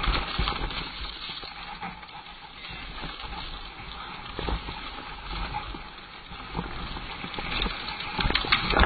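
Wind rushing over a helmet camera's microphone as a mountain bike descends a dirt trail. The tyres are rolling, and the bike rattles with short knocks over bumps. The clatter gets louder and denser near the end.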